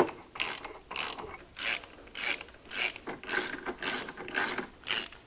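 Ratchet wrench clicking in repeated back-and-forth strokes, about two a second, tightening mounting bolts.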